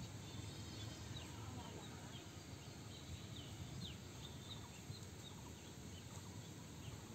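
Faint outdoor ambience: small birds chirping, with short, high, falling chirps scattered through, over a low rumble.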